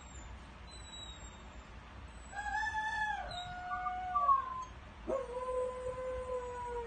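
Dog howling in its rooster-like 'crowing': two long howls, the first starting about two seconds in, wavering and ending on a higher note, the second sweeping up quickly and then held on one steady note.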